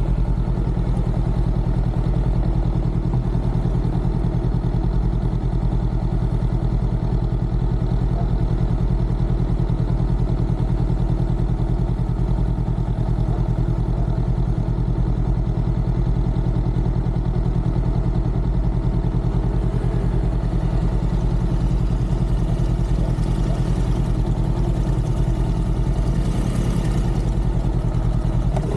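Motorcycle engine idling steadily while the bike stands still, even in pitch and level with no revving.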